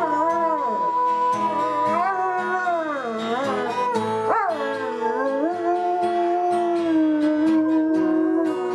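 Dog howling along with music: one long, unbroken howl that wavers up and down in pitch over held notes.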